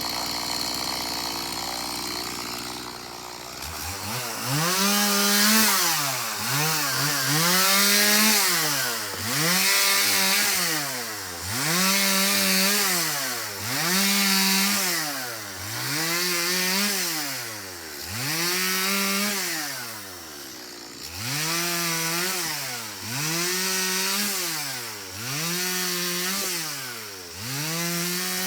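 Chainsaw engine revved up and down over and over, starting a few seconds in: the note climbs, holds at full speed and drops back about every two seconds.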